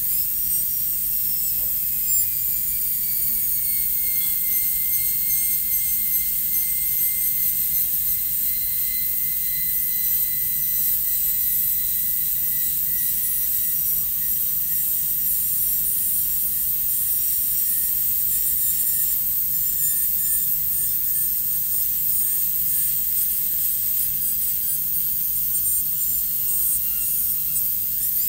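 High-speed dental handpiece with a 330 bur running and cutting a plastic typodont molar: a steady high whine over a hiss, its pitch sinking slowly as the bur smooths the walls and widens the isthmus of an amalgam cavity preparation.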